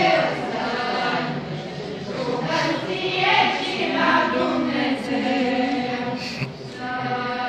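A group of worshippers, women's voices among them, chanting a repeated invocation to Saint Nektarios together, in the manner of an Orthodox hymn.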